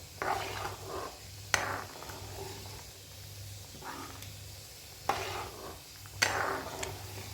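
A pot of dal simmering on a gas stove while a spoon stirs it, knocking sharply against the pot three times.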